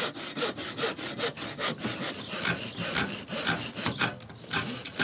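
A hand tool working over old wood in quick, even back-and-forth strokes, about three a second, scraping and rasping along a wooden sill.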